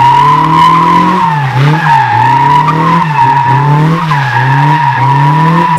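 Tires squealing steadily under wheelspin from a Honda S2000, its four-cylinder engine revving up and dropping back over and over, about once a second, as the driver works the throttle.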